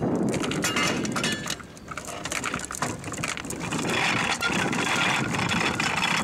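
Boat's anchor chain rattling and clanking over the bow roller as the anchor is worked at the bow, a quick run of metallic clicks, with an engine running steadily underneath.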